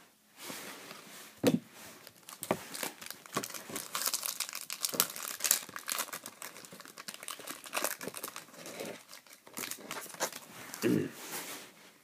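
A baseball card pack wrapper being torn open and crinkled by hand: a long run of dense crackling, with a few sharper taps along the way.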